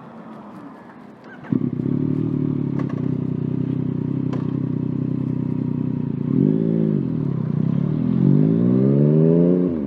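Yamaha FZ-09/MT-09 three-cylinder engine firing up about a second and a half in and idling steadily, then revved once quickly and again in a longer rising rev near the end, with a few small clicks before it starts.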